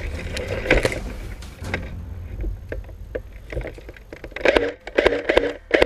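Footsteps and rustling of a person moving through tall dry grass and brush, with scattered sharp crackles of stems. From about four and a half seconds in, the steps fall into a steady pace of about three a second.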